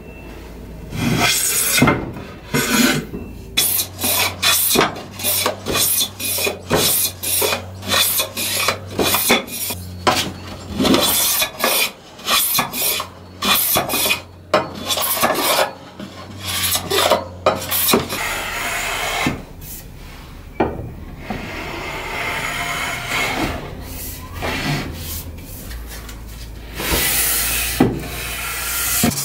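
Hand sanding of a stained rounded wooden table edge: an abrasive block rubbed back and forth in quick strokes, about two a second, then in steadier continuous rubbing, stripping the dark stain to bare wood.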